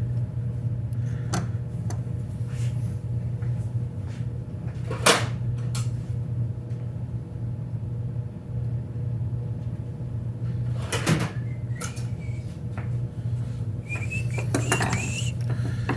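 Small chainsaw parts being handled and fitted by hand: a few scattered clicks and knocks, the sharpest about five seconds in and a short cluster about eleven seconds in, with brief squeaks near the end, over a steady low hum.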